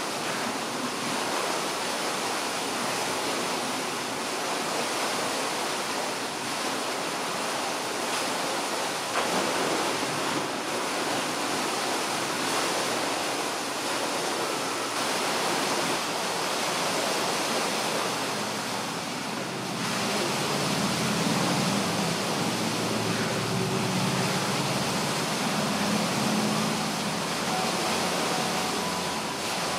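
A steady, even rushing noise, with a low murmur joining in from about eighteen seconds in.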